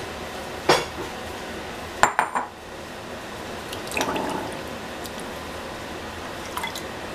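Kitchen sink sounds as raw chicken is rinsed: scattered knocks and clinks of kitchenware, a sharp clatter with a brief ring about two seconds in, and water splashing about four seconds in.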